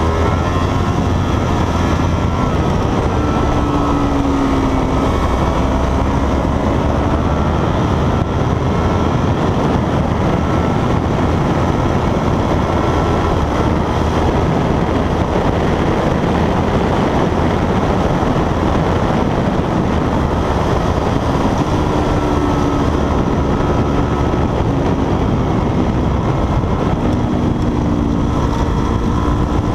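Heavy wind rush over a motorcycle-mounted camera at track speed, with a motorcycle engine note rising and falling beneath it, most plainly a few seconds in and again in the last third.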